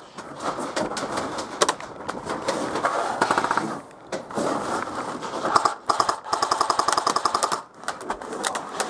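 Airsoft rifles firing rapid full-auto bursts, a fast run of evenly spaced clicks. The longest burst comes about six to seven and a half seconds in, with shorter bursts before it.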